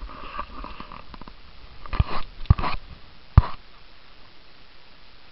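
Handling noise on a handheld camera's microphone: rustling, then a few sharp knocks and bumps about two to three and a half seconds in.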